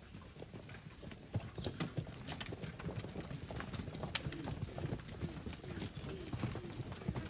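Hooves of a line of grey Brahman bulls walking on brick paving, many overlapping irregular clopping steps.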